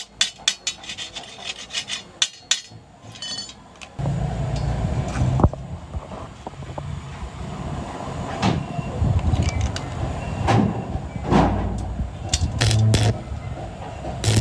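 Workshop work sounds: a quick run of sharp taps and clicks, then, about four seconds in, a low machine hum starts with scraping and scattered knocks over it.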